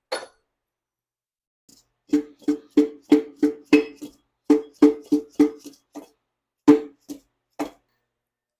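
Repeated hammer knocks driving a piston and connecting rod out of its cylinder bore in a Ford 460 V8 block. There are some sixteen sharp, briefly ringing strikes, about three a second, spacing out near the end.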